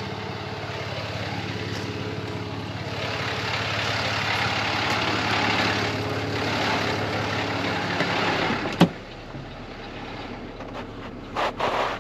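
Truck engine idling steadily, with rustling from handling. A sharp thump comes about nine seconds in, after which the engine hum drops away, and two short knocks follow near the end.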